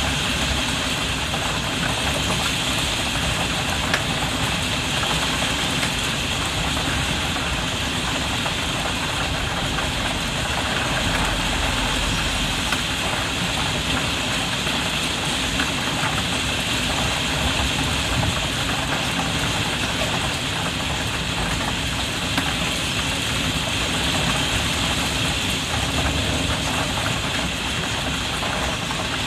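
Rain pattering steadily on a skylight, heard from inside the room below, a continuous hiss with a low rumble and occasional single drops ticking on the glass.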